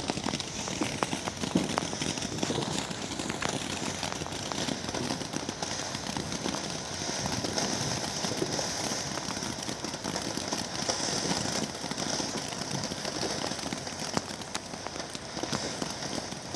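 Ground fountain firework spraying sparks: a steady hiss full of dense crackling, with a few louder pops.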